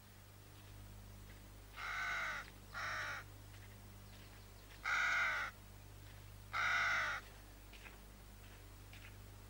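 A crow cawing four times: two calls close together about two seconds in, then two more spaced out around five and seven seconds, over a faint steady low hum.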